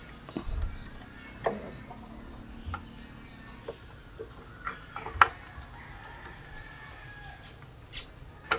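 Birds chirping over and over, short rising chirps. Sharp plastic and metal clicks and knocks as a replacement lamp is handled and seated in a moving-head light's housing; the loudest click comes about five seconds in and another near the end.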